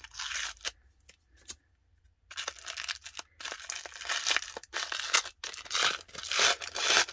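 A short rip as a paper sticker seal is peeled off, then after a brief pause, tissue paper wrapping being pulled open and crinkled by hand in a dense run of rustling and crackling.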